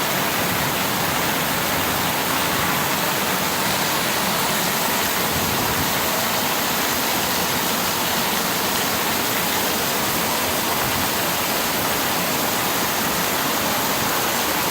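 Rain falling steadily in a dense, even hiss.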